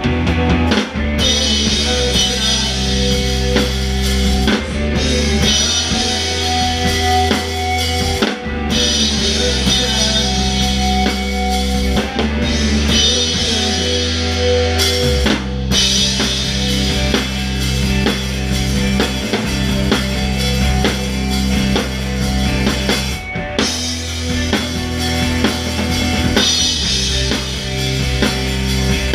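Loud post-hardcore rock band playing live, with a Ludwig drum kit heard close up, kick drum, snare and cymbals driving over sustained bass and guitar. The band stops for an instant several times, about a second in, near 8 and a half seconds, near 12, near 15 and a half and near 23 seconds.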